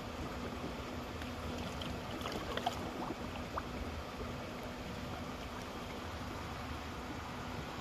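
A small boat's engine running steadily with a low hum, heard from aboard over a wash of water and wind noise, with a few faint clicks a couple of seconds in.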